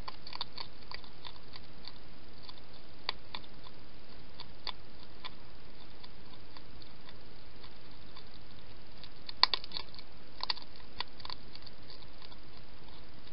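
Wild hedgehog eating from a bowl: irregular crisp crunches and clicks of chewing, loudest about two-thirds of the way through and again a second later, over a steady hiss.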